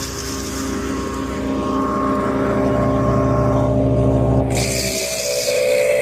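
Gasoline engine of a MechMaxx wood chipper running steadily. About four and a half seconds in, the sound changes abruptly and a loud rushing noise joins it.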